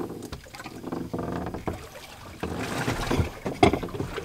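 Small fishing boat's engine humming steadily, with wind on the microphone; in the second half, several sharp knocks from handling on deck.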